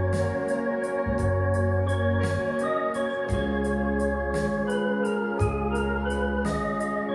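Electronic keyboard being played: a held melody over long bass notes that change about once a second, with a steady ticking beat behind.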